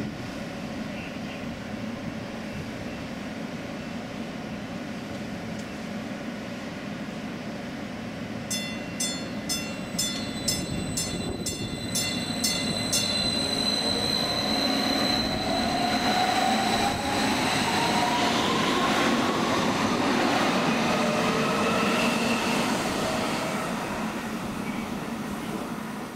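MetroLink light rail train pulling out and passing close by. Its bell rings about twice a second for several seconds, then a rising electric whine and rumbling wheel-on-rail noise build as it accelerates past, and the noise eases as it draws away near the end.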